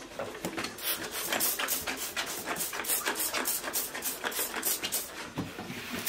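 Cloth wiping furniture polish across a wooden chest-of-drawers top: quick back-and-forth swishing strokes, about three a second, starting about a second in.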